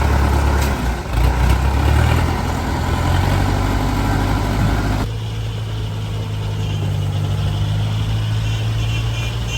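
Rice combine harvester's diesel engine running steadily. About halfway through, the higher clatter and hiss cut off suddenly, leaving the low, even engine sound.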